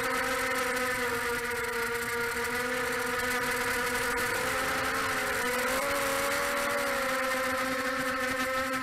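Pitbull 250 racing quadcopter's brushless motors and propellers whining steadily in flight, the pitch dipping and rising about five seconds in with throttle.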